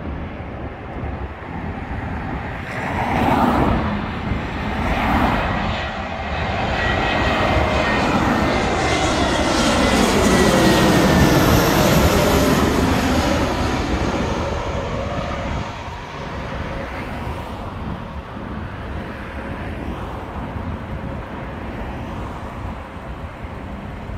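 Spirit Airlines Airbus A320-family jet on landing approach passing low overhead. Its engine noise swells to a peak about halfway through, with whining tones gliding down in pitch as it goes by, then fades away. Two short rushes of noise come about three and five seconds in.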